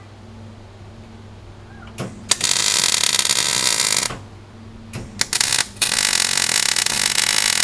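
Electric welding of metal strips onto a bowsprit frame. Two bursts of crackling arc noise, about two seconds each, start about two seconds and about five seconds in. Each is preceded by a short click, and a steady low hum runs underneath.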